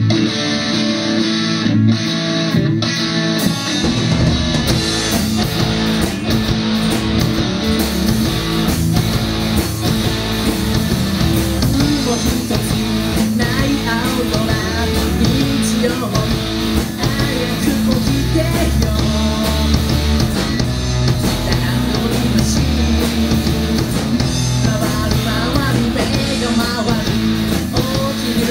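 Live rock band playing: a guitar opens alone, then drums and bass come in about four seconds in and the full band plays on, with singing over it later.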